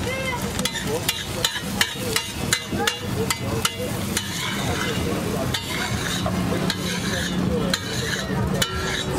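Metal spatula clacking and scraping on a hot flat iron griddle (tawa), in a run of sharp strikes thickest in the first four seconds, over steady sizzling of egg frying in oil.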